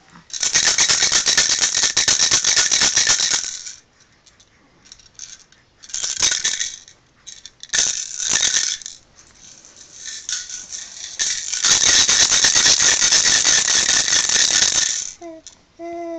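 Small plastic toy maraca shaken in separate bursts of rattling: one of about three seconds, two short shakes, then a longer shake of about five seconds. Near the end a baby coos briefly.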